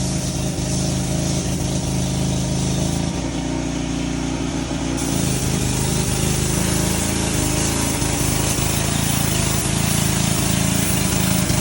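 Pressure washer running steadily, its small engine droning under the hiss of the spray, with a brief change in the sound a few seconds in.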